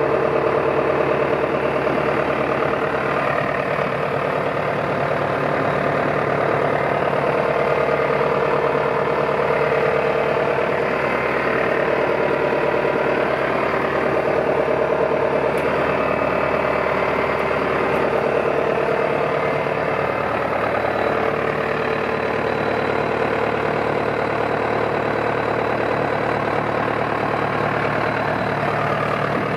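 John Deere 6200 tractor's four-cylinder diesel engine idling steadily.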